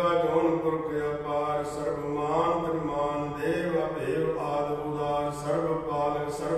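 A man's voice reciting Sikh scripture (gurbani) in a steady chant, with no pauses.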